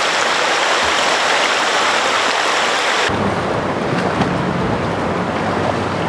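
Shallow rocky stream flowing, a steady rushing hiss of water. About three seconds in the sound changes abruptly, turning duller with more low rumble.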